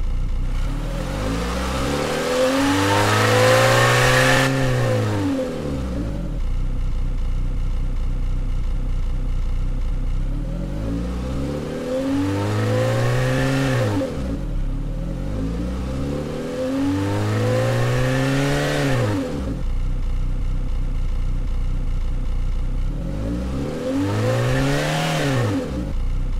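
Car engine sound synthesized from a recording by the AudioMotors plugin, revving up and falling back to idle four times, like an engine blipped in neutral.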